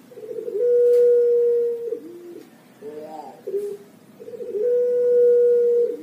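Puter pelung, a long-voiced Javanese variety of the Barbary dove, cooing twice. Each coo opens with a short rolling stutter, then holds one long, steady note for over a second before dropping off, with short lower notes between the two.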